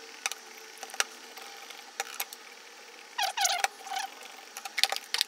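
Plastic finger-pump sprayer on a hair and body mist bottle clicking as it is pressed again and again: several sharp clicks at uneven gaps, with a small cluster near the end. The pump is slow to prime and needs many presses before it sprays.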